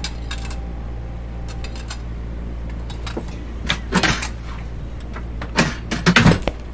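Kitchen sound effects: plates and dishes knocking and clattering as they are handled and set down, in scattered clusters that are loudest near the end, over a steady low hum.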